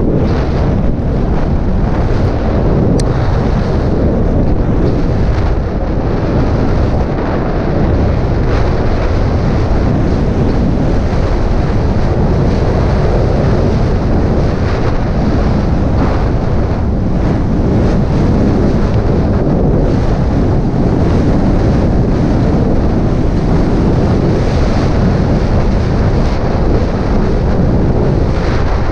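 Wind rushing loudly over the camera microphone of a mountain bike riding downhill, a steady low rumble with a few light clicks and rattles from the bike and trail.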